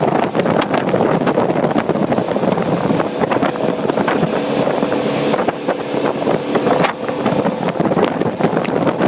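Motorboat under way, a faint engine hum beneath heavy wind buffeting the microphone.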